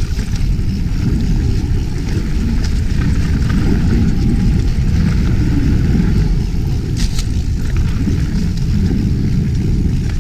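Mountain bike descending a dirt singletrack at speed: wind buffeting the camera microphone and tyres rumbling over the trail make a loud, steady low rumble, with a sharp rattle from the bike about seven seconds in.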